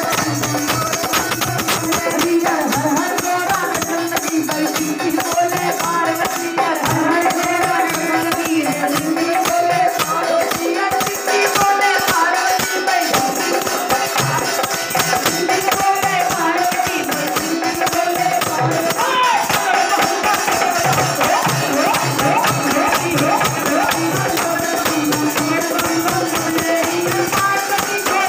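Devotional kirtan bhajan: a woman singing through a microphone and loudspeaker, with a dholak drum and jingling hand percussion keeping a steady, fast beat.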